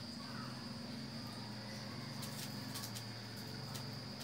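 Garlic frying gently in oil in a pan, with a few light clicks of a spoon and wooden spatula against the bowl and pan, over a steady low hum and a thin high whine.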